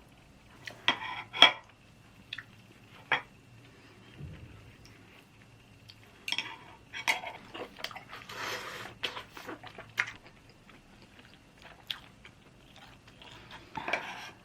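Eating utensils clinking and tapping against a dish of fish cake soup, in scattered sharp clinks, the loudest about a second and a half in.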